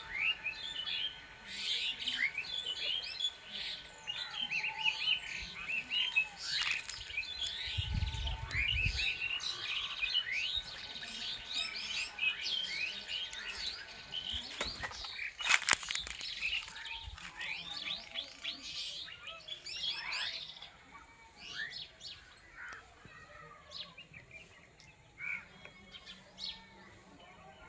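Many birds chirping and trilling together, dense at first and thinning out toward the end, over a thin steady tone in the first half. A couple of sharp knocks about halfway through are the loudest sound.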